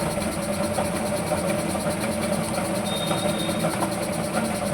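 A motor or engine running steadily with an even hum, with a few faint clicks and a brief high thin tone about three seconds in.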